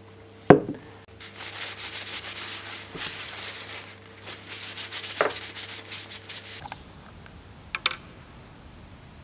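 Paper towel rubbing oil into a turned wooden honey dipper, a run of quick, even rubbing strokes, after a sharp knock about half a second in. A short click near the end.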